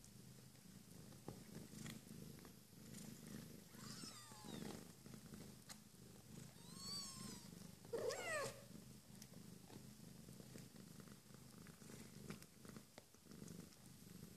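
Mother cat purring steadily and faintly while nursing her three-day-old kittens. A few short, thin, high mews from a newborn kitten come about four, seven and eight seconds in, the last the loudest.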